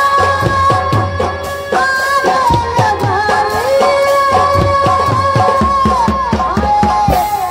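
Live folk stage music: a sustained melody with sliding notes over steady hand-drum beats, with a woman's singing voice.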